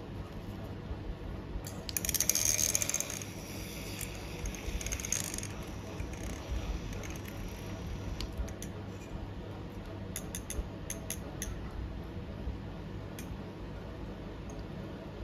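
A short burst of light clinking and rattling about two seconds in, then a few sharp clicks near the middle.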